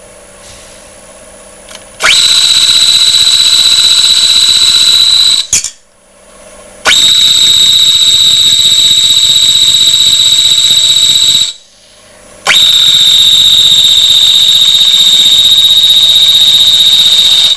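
Crown texturing tool's serrated wheel pressed flat against the rim of a bowl spinning on a wood lathe, giving a really loud, piercing, steady high-pitched squeal. It comes in three long passes of about four to five seconds each with short breaks between; before the first, only the lathe's quiet running is heard.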